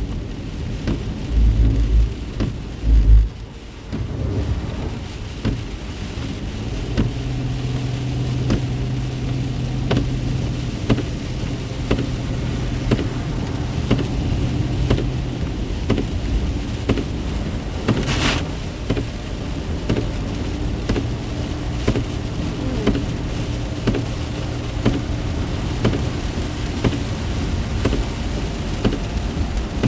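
Heavy rain pelting a moving car's roof and windshield, with many sharp drop impacts over steady road and engine hum. There are a few heavy low thumps in the first three seconds and one sharp crack about 18 seconds in.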